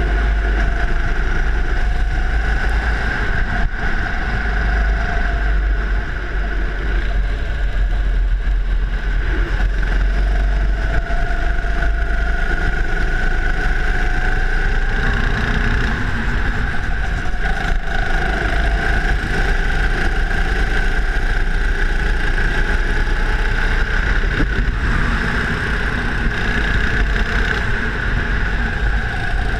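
Go-kart engine running continuously at speed, heard from the kart itself, its pitch shifting up and down with the throttle through the corners, over a constant low rumble.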